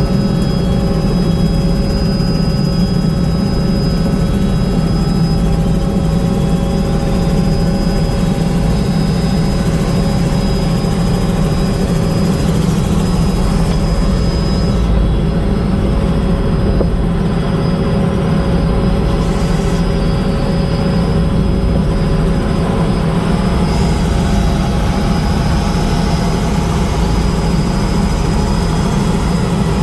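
Helicopter in flight: steady engine and rotor noise with a thin high whine.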